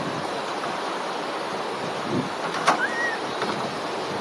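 Steady outdoor rushing noise, like running water, with a sharp click and a short high chirp that rises and then dips about two and a half seconds in.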